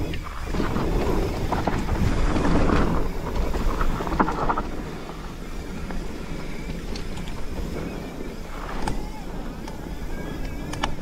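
Mountain bike rolling fast down a dirt singletrack: the tyres run over the dirt, the bike clicks and rattles over bumps, and wind rushes over the microphone. It is loudest over the first few seconds.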